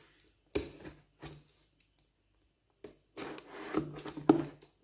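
Utility knife cutting through packing tape and cardboard on a shipping box: two short scrapes, then a longer scraping cut lasting about a second and a half with a sharp knock near the end.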